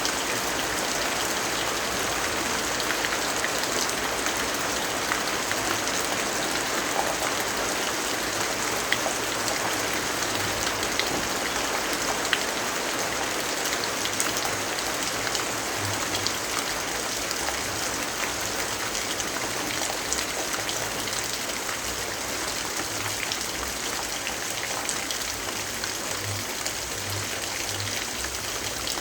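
Steady rainfall: an even hiss with many scattered sharp ticks of individual drops.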